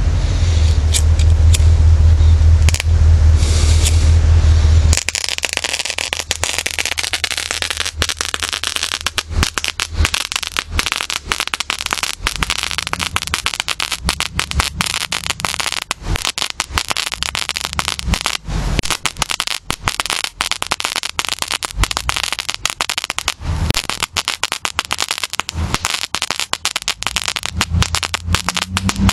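A hand-held Universal "Rub It Crackle" firework stick crackling in a dense, continuous run of small sharp pops from about five seconds in. Before that, a low rumble with a few clicks, which cuts off suddenly.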